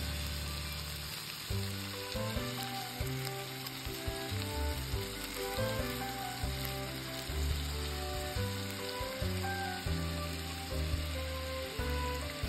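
Ground beef-and-pork patties sizzling in oil in a non-stick frying pan, a steady crackling hiss, under background music with a bass line.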